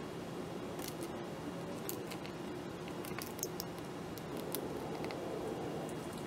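Light clicks and clinks of brass shell casings being handled and set against each other, a few scattered ticks at a time, over a steady background noise.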